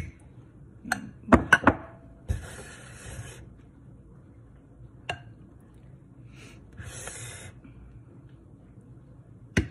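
A metal spoon clinking and scraping against a glass bowl as chocolate pudding is spooned in, with a quick run of clinks about a second and a half in, single taps later, and two short spells of scraping.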